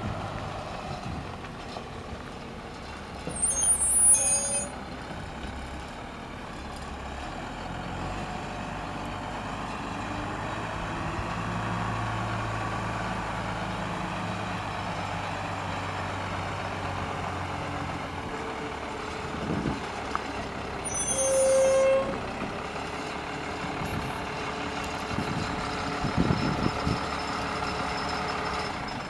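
1995 Ford school bus engine running steadily as the bus is driven slowly around and pulled up, with two short high-pitched squeals, about four seconds in and again about twenty-one seconds in.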